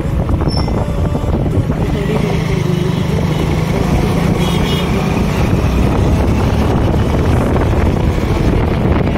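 Motorcycle riding along the road, its engine and road noise running steadily.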